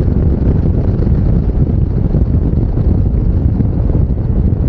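Wind blowing across an unshielded lavalier microphone on a rider of a moving Yamaha NMAX 155 scooter, a steady low rumble with the ride's vehicle noise underneath.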